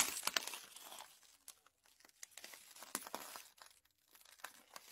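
Footsteps crunching on debris: irregular crackles and clicks, loudest at the start and thinning out to near quiet about four seconds in.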